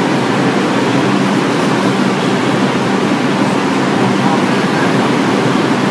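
Steady, loud rumble and hiss of a New York City subway train in an underground station, heard through an open car door.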